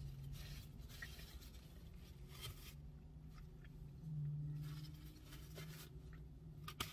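Faint rustling and crinkling of paper being handled in short bursts, over a low steady hum.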